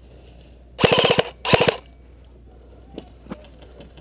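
Airsoft rifle firing two short full-auto bursts about a second in, a rapid rattle of shots, loud and close.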